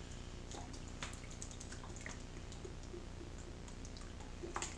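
Faint trickle of lemon juice poured in a thin stream from a squeeze bottle into a plastic measuring cup, with a couple of light clicks, over a steady low hum.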